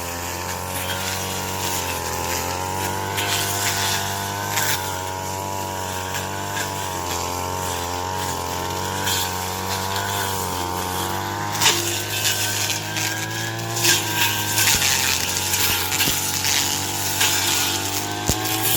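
Engine-driven chopping machine cutting corn stalks: a steady motor note that wavers in pitch under load, with sharp crackling cuts that come thicker and louder in the second half.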